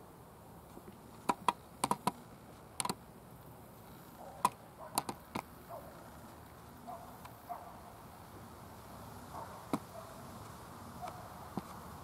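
A dozen irregular sharp clicks and taps, several in quick clusters in the first half and a couple later, over a quiet outdoor background with a few faint short chirps; no siren is sounding.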